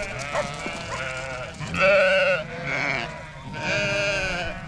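A large flock of sheep and lambs bleating, many calls overlapping. Two loud, wavering bleats stand out about two seconds in and again near four seconds.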